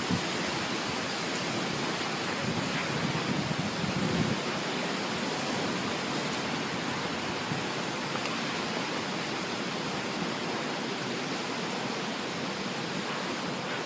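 Storm wind blowing hard and steadily in a dust storm, with gusts buffeting the microphone near the start and about four seconds in.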